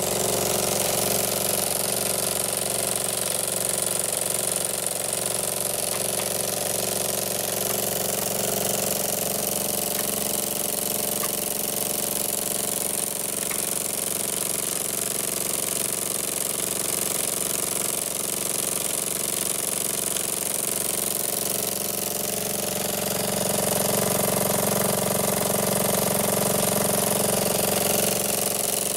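Jensen #35 model steam engine running steadily while belt-driving small model dynamos, which put a load on it. It gets a little louder in the last few seconds.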